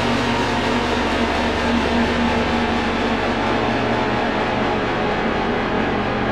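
A suspense sound effect: a steady, dense drone of many held tones over a low hum, with no change in loudness.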